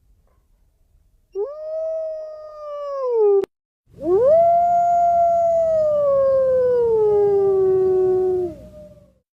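Wolf howling: a short howl that rises, holds and slides down, ending in a sharp click, then a long howl that rises quickly and slowly falls in pitch. A second, higher howl overlaps it near the end.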